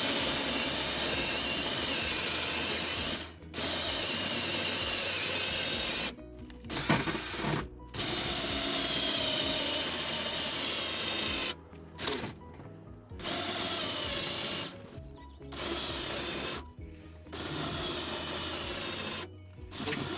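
Cordless drill driving a hole saw through a panel, run in about six trigger pulls of a few seconds each. Its whine sags in pitch during the later runs as the battery dies.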